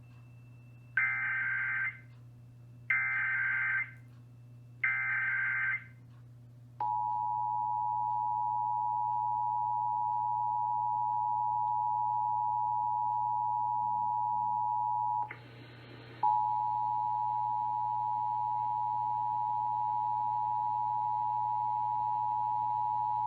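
Emergency Alert System broadcast: three one-second bursts of warbling SAME header data, then the two-tone EAS attention signal, a steady shrill dual tone. The dual tone drops out for about a second partway through, then resumes. The sequence opens an alert, here a statewide EAS test, with a low steady hum underneath.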